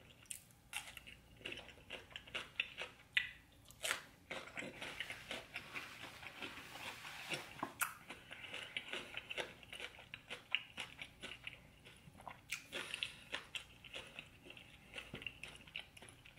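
Close-miked mouth sounds of a person chewing and biting food, with many short clicks and smacks throughout.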